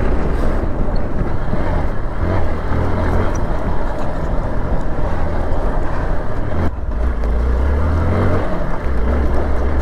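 Hero XPulse 200 4V's single-cylinder engine running as the motorcycle is ridden over a rough, bumpy track, its note swelling and easing, with a steady rush of noise over it.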